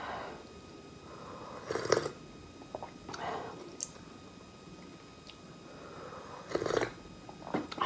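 Sipping and swallowing from a cup, close to the microphone: a few short wet mouth sounds, loudest about two seconds in and again near the end.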